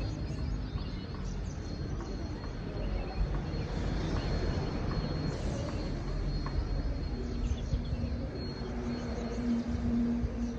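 Open-air field ambience: a steady rumbling noise, with a faint high steady tone running through it. A low steady hum joins about two-thirds of the way in.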